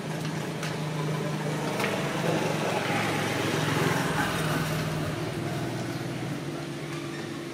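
An engine running steadily, its sound swelling to a peak about three to four seconds in and easing off again.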